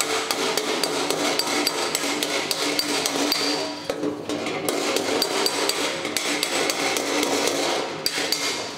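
Body hammer tapping lightly and quickly, several strikes a second, on a sheet-metal motorcycle fender backed by a dolly, the panel ringing between blows. The taps knock down the high spots of a dent while the dolly underneath brings the lows up.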